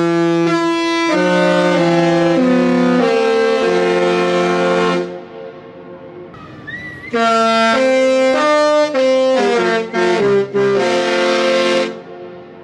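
Disney Wish cruise ship's musical horn playing a tune: a run of short held notes ending on a long one, then after a pause of about two seconds a second phrase of quicker notes ending on a long note. The notes have a loud, brassy tone.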